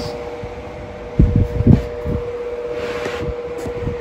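Electric pedestal fan running, a steady hum and whoosh, with a few dull low thumps a little over a second in.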